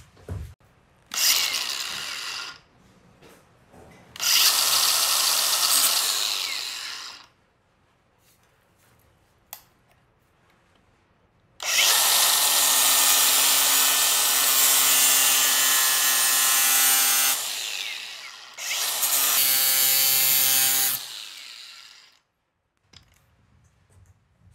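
Angle grinder with an abrasive disc grinding the edge of a red metal colander rim in four bursts, the longest about six seconds, with the motor's steady whine under the grinding noise.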